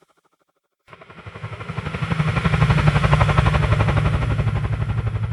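Helicopter rotor blades chopping in a fast, even rhythm as the helicopter passes by: it fades in out of silence about a second in, grows to its loudest past the middle, and begins to fade away near the end.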